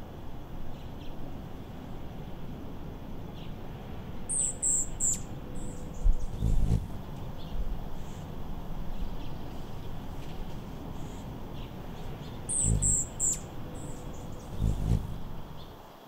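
A bird chirping in two short bursts of three or four quick, high notes, about eight seconds apart, over a steady low rumble with a few deeper thumps.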